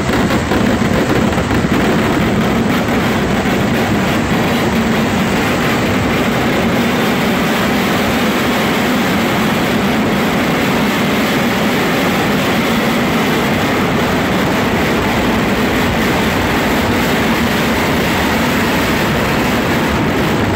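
Massive fireworks barrage at full intensity: firecrackers going off so fast that they merge into one steady, loud wall of noise with no break.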